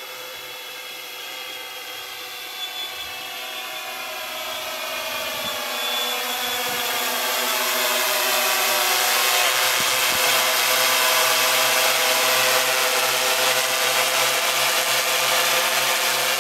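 Quadcopter's electric motors and propellers whining, several tones sliding up and down in pitch as it manoeuvres. It grows louder through the first half as the quad comes closer, then holds steady.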